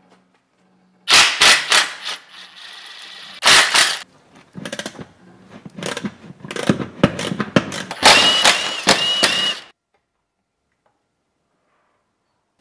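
Impact wrench rattling in several short bursts on the transmission bolts, with metal tool clatter between them. It stops abruptly about two-thirds of the way through.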